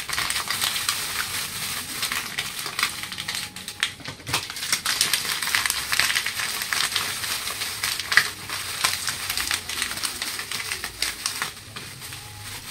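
Shiny plastic gift-wrap sheets crumpled and twisted in the hands, a dense continuous crackling with scattered sharper snaps, used as foley for the fire of a burning vehicle.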